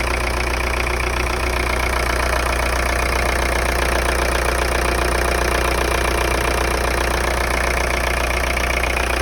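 VW 1.9 TDI (AFN) four-cylinder turbodiesel idling steadily with diesel clatter.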